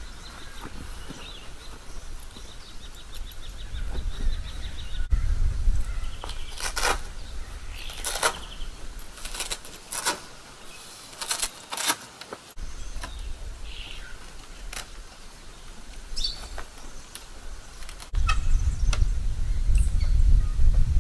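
Birds calling over low wind rumble on the microphone, with a run of sharp rustles and clicks in the middle as the car's roof-rack awning and its poles are handled and packed away.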